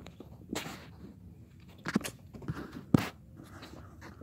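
Handling noise: a few short knocks and scuffing rustles about a second apart, the loudest about three seconds in.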